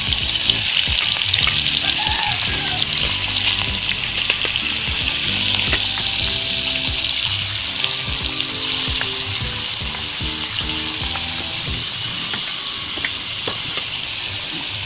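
Bacon strips frying in hot olive oil in a wok: a loud, steady sizzle with small crackling spatters that eases a little over time. Near the end a spatula stirs the bacon against the pan.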